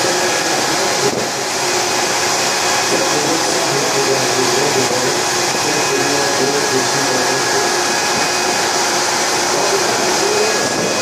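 Steady, loud roar in a steamboat boiler room: the burner firing a large horizontal boiler, with blower noise and faint steady tones from the machinery.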